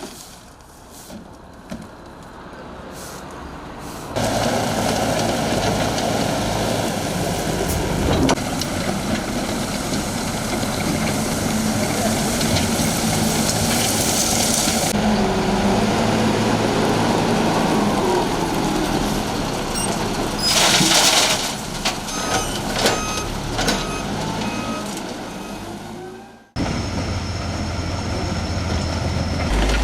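Heavy work vehicles running, with short repeated beeps of a reversing alarm about twenty seconds in. The sound changes abruptly twice, once about four seconds in and again near the end.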